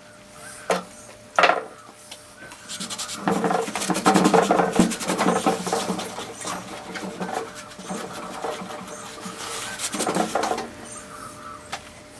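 Cloth rubbing and scraping close to the microphone, heaviest in the middle, with a few sharp knocks near the start and another scuffle near the end: handling noise from cleaning the lathe bed.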